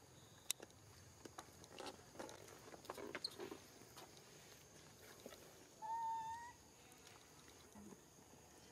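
Baby macaque giving one short, high-pitched squeaky call about six seconds in, over light scattered rustling and clicks from the monkeys moving.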